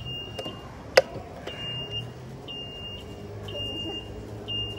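Electric mobility shopping cart's reversing beeper: a high beep repeating about once a second while it backs up, with a sharp click about a second in and a low hum joining in partway through.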